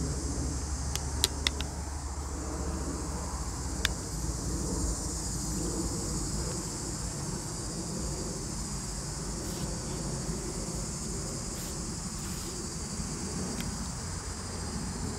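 Steady high-pitched chorus of crickets over a low outdoor rumble, with a few sharp clicks in the first four seconds.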